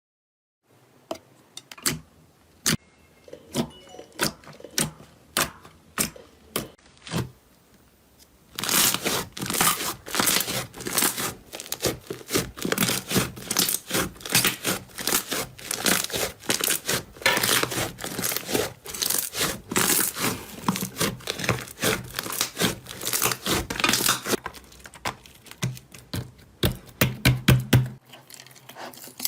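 Slime being played with by hand, making sharp clicks and crackling pops: scattered at first, then a dense crackling run of about sixteen seconds, then scattered again near the end.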